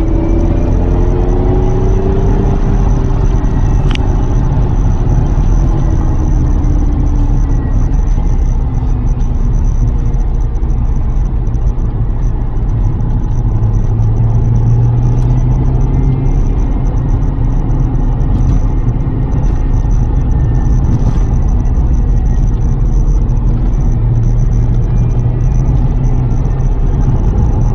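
Lotus Carlton's twin-turbo 3.6-litre straight-six driving, over a heavy low road rumble. The engine note eases off and falls in pitch over the first several seconds, then holds a steady cruising note, with a sharp click about four seconds in.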